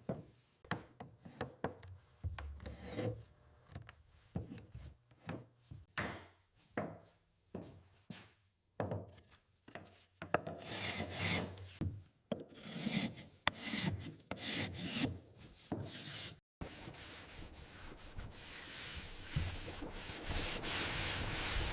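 A hand tool working wood in repeated scraping strokes, one or two a second. About sixteen seconds in the strokes stop abruptly and a steady hiss takes over, growing louder.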